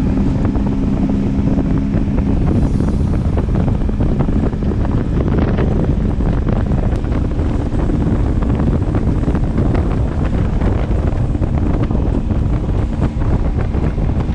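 Heavy wind buffeting the microphone on a small motorboat under way, with the boat's engine holding a steady hum underneath.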